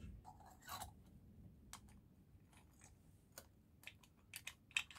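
Faint, irregular metallic clicks and taps as the clutch springs and spring cups of a Triumph T140 clutch are set onto the pressure plate by hand: about a dozen small clicks, the loudest near the end.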